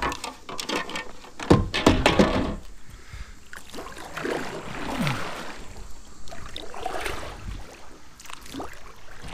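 Water splashing as a smallmouth bass held by the lip is dipped into the river beside a kayak. The loudest bout of splashing and thrashing comes about one and a half to two and a half seconds in, followed by scattered smaller splashes and handling knocks.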